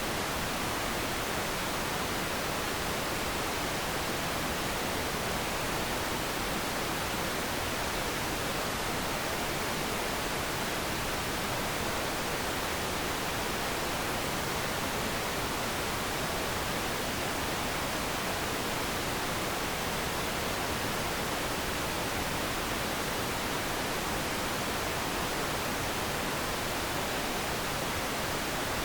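Static noise sound effect: a steady, unchanging hiss spread evenly from low to high pitches, with no rhythm or change in level.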